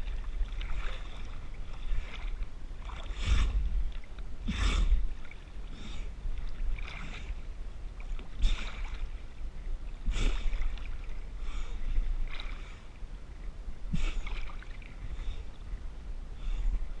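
A swimmer's strokes splashing in river water, irregular, about one every second or so, over a steady low rumble.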